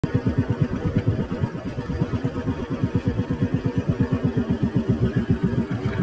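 Motorcycle engine running at low revs, a rapid even pulsing of about ten beats a second that comes in suddenly.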